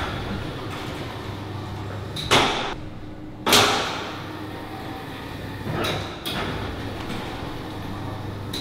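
Curved sliding doors of cylindrical personnel security booths (airlock-style mantraps) swishing open and shut: two strong swishes a couple of seconds in, the second the loudest, then two fainter ones about six seconds in, over a steady low hum.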